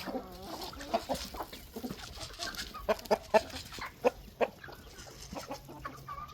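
Flock of backyard chickens clucking, with many short calls in quick succession.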